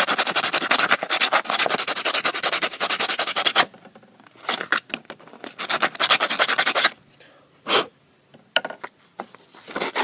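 Sandpaper rubbing rapidly back and forth over the cut edge of a short piece of half-inch PVC pipe, smoothing off the burrs. The strokes run without a break for about the first three and a half seconds, then come in shorter bursts with pauses, with one short knock a little after the middle.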